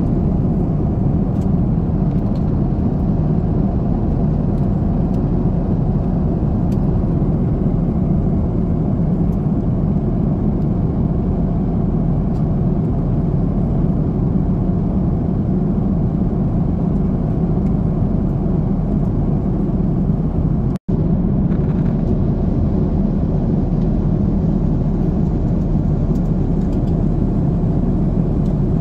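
Steady low drone of an Airbus airliner's engines and airflow in cruise, heard inside the cabin at a window seat over the wing. The sound cuts out for an instant about two-thirds of the way through.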